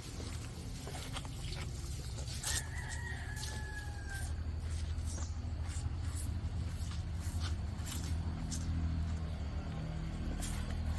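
A rooster crowing once, a single long call starting a little over two seconds in that drops slightly in pitch at the end. Underneath run a steady low rumble and scattered short clicks and knocks.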